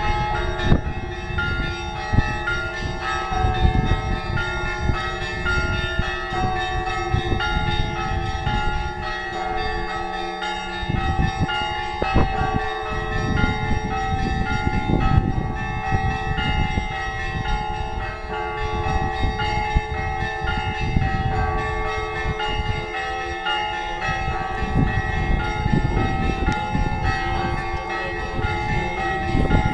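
Orthodox church bells ringing a festive Easter peal: many bells of different pitches struck in overlapping rhythm and ringing on continuously.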